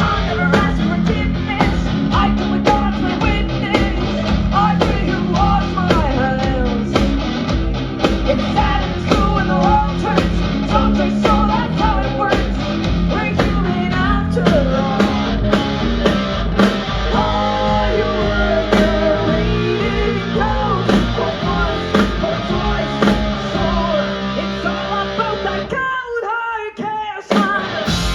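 Rock band playing live, with electric guitar, bass, a drum kit and singing. About two seconds before the end the bass and drums drop out briefly, then the full band comes back in.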